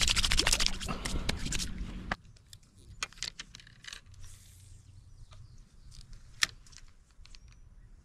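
Hands rubbing and splashing in pond water, a dense crackly splashing that stops suddenly about two seconds in. Then scattered light clicks from handling a spinning rod and reel, with one sharp click about six and a half seconds in.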